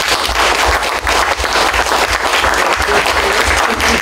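Audience applauding: dense, steady clapping from many hands in a lecture hall.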